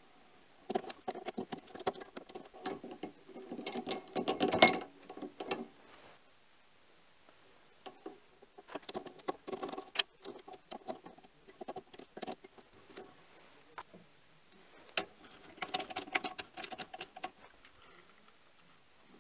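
Metal clicks and rattles from clamping a carbide endmill in a four-jaw lathe chuck with a chuck key, coming in three bouts with short pauses between.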